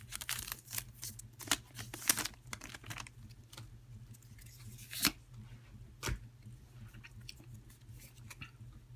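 A foil Pokémon trading card booster pack being torn open, a run of quick rips and crinkles in the first couple of seconds, then a few isolated sharp clicks.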